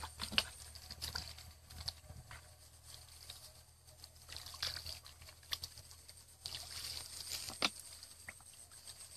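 Scattered small splashes and sloshes of hands groping through shallow muddy water while catching fish by hand, irregular and fairly quiet, over a faint steady high-pitched tone.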